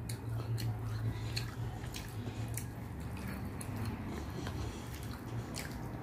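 Fingers mixing rice with moong dal on a plate: irregular wet squishes and small clicks, over a low steady hum.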